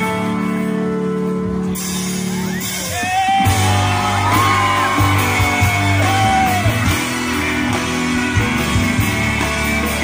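Live band with a singer: held guitar and keyboard chords, then about three and a half seconds in the bass and drums come in fully and a voice sings a melody over them.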